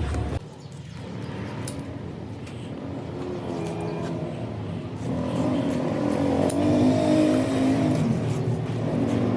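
A steady low hum cuts off suddenly about half a second in. After that an engine runs and revs, getting louder from about five seconds in.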